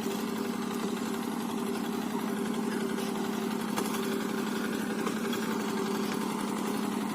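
Small engine running steadily at an even speed, with a constant hum.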